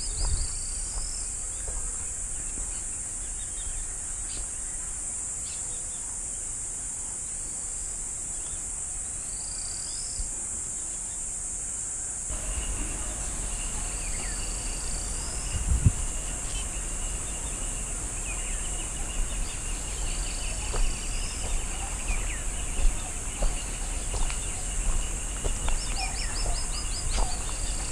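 Forest ambience: a steady high-pitched insect drone with scattered bird chirps and trills. The background changes abruptly about twelve seconds in, and there is a single sharp knock a few seconds later.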